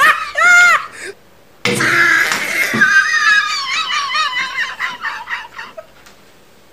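A person laughing hard. A short high-pitched burst comes first, then a brief pause, then a long run of laughter that trails off near the end.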